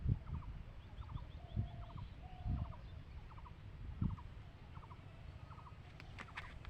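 An animal calling over and over in short, quick pulsed bursts, a new burst about every three-quarters of a second, over low thumps. There are a few sharp clicks near the end.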